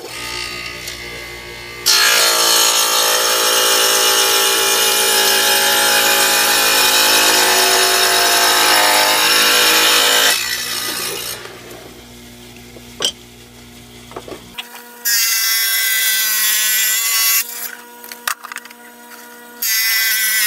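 Small tabletop wet tile saw running, its blade cutting through ceramic subway tile. One long loud cut runs from about two seconds to ten seconds, the motor then runs more quietly, and two shorter cuts come near the end.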